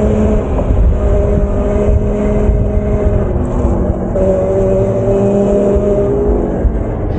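Electric bike motor whining steadily while riding, its pitch shifting a few times as the speed changes. Heavy wind rumble on the microphone from the ride is the loudest part.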